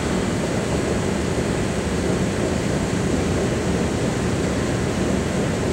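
Steady low rumble of a subway station platform, unchanging in level throughout.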